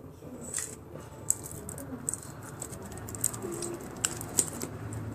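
Light, scattered clicks and rattles, about six sharp ticks over five seconds, from small candies and their packaging being handled.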